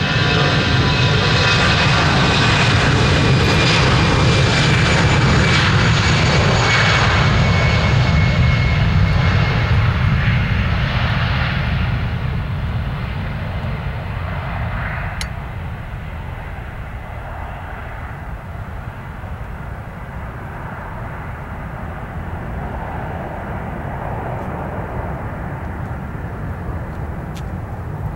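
Airbus A320 twin jet engines at takeoff power as the airliner rolls past and lifts off: loud jet noise with a high whine that falls slightly in pitch, loudest in the first ten seconds or so. It then fades to a steady distant rumble as the plane climbs away.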